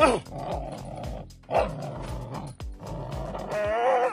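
Young dog barking and growling as it bites and tugs on a bite pillow, giving short barks that drop sharply in pitch and a longer wavering cry near the end.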